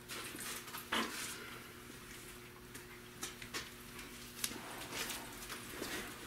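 Faint scattered clicks and rustles of someone moving about and handling gear, pulling on a half-face respirator, over a steady low hum.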